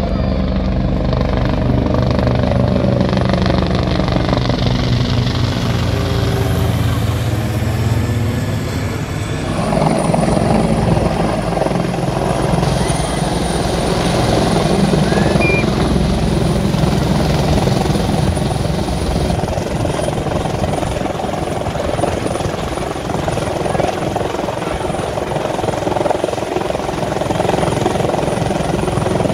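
A helicopter and a small propeller plane flying past together, their engine sound falling in pitch as they pass. About ten seconds in, this gives way to a military helicopter hovering low close by: steady rotor and turbine noise.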